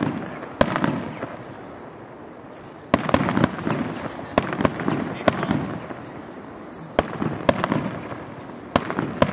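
Aerial fireworks shells bursting in an irregular series of sharp bangs, each trailing off in an echoing rumble. After a single bang and a pause of about two seconds, a rapid cluster of bangs follows, with more near the end.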